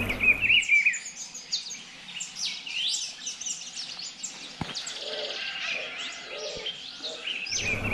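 A chorus of many birds chirping and calling with short, quick, downward-sweeping whistles, and a few soft lower notes in the middle. A steady low rumble of riding noise stops about half a second in and comes back near the end.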